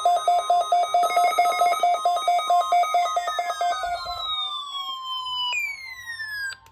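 NOAA Weather Radio 1050 Hz warning alarm tone, a steady high tone, sounding during the weekly test. Over it a weather radio receiver's alarm beeps rapidly, about five beeps a second, and stops about four seconds in. Falling tones then glide downward, and the steady tone cuts off with a click near the end.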